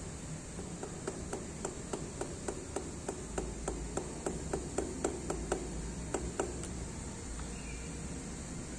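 A small hammer lightly tapping a workpiece clamped in a lathe chuck, about twenty quick taps at three to four a second that stop about six and a half seconds in. The taps nudge the stock into true running, checked against a dial indicator.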